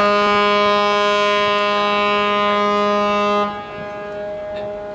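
The Hankyu Ferry Izumi's ship horn sounds one long, deep, steady blast as it departs port. The blast cuts off sharply about three and a half seconds in, and its note lingers more faintly afterwards.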